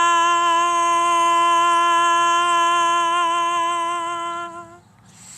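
A woman's voice holding one long, steady sung note in light-language singing, then stopping near the end.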